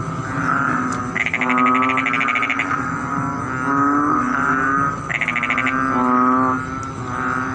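Frogs calling, at least two of them: a low, droning call with short breaks, and twice a higher, rapid rattling trill lasting about a second.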